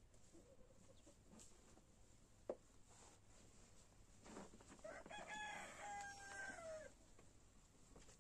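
A rooster crows once about halfway through, a drawn-out call of about two seconds that falls in pitch at the end. A little earlier there is a single sharp click.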